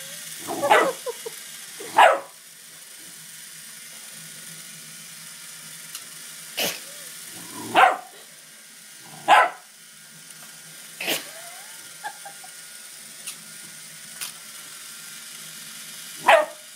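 Doberman puppy barking in play: about seven short, sharp single barks spaced one to several seconds apart, with a cluster of yips about a second in and the loudest barks about two, eight and nine seconds in.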